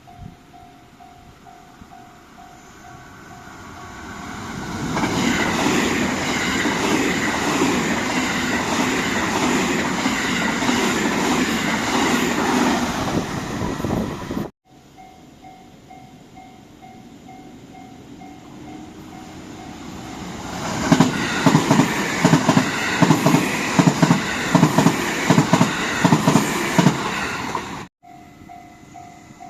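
Japanese railway level-crossing alarm ringing a steady repeated ding while JR Kobe Line trains pass through the crossing. The first train passes loudly for about ten seconds. After a cut the alarm rings again, and a second train passes with a fast, even clatter of wheels over the rail joints.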